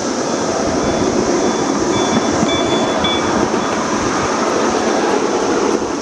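Ride-on live steam miniature train running along the track, heard from a riding car: a steady rumble of wheels on the rails.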